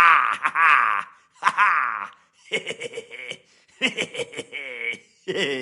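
Silly laughs, about five short ones in a row with brief silent gaps, the pitch wavering and falling within each.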